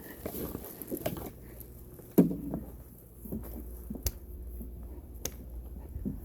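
Scattered knocks and clicks of handling, with one louder thump about two seconds in, over a low steady rumble.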